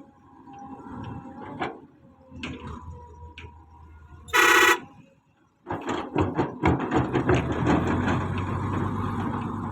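A horn sounds once in a short blast. After a brief pause, a bulldozer runs loudly with rapid, continuous clanking.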